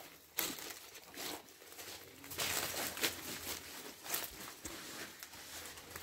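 Dry twigs and leaves crackling and snapping as someone pushes through brush and steps over leaf litter: an irregular string of crackles with a few louder snaps.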